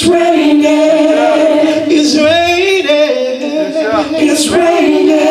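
Gospel praise team of men and women singing together in harmony into microphones, with long held notes.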